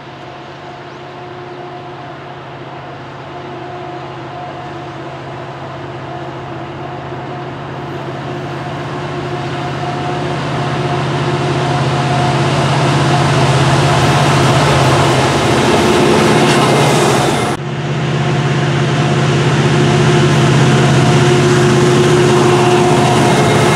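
Two CN diesel-electric freight locomotives, an EMD SD70M-2 and a GE ET44AC, running at track speed. Their engines hold a steady low drone under a rising wash of wheel-and-rail noise, growing louder as they approach and pass. The sound breaks off for a moment about 17 seconds in, then carries on loud.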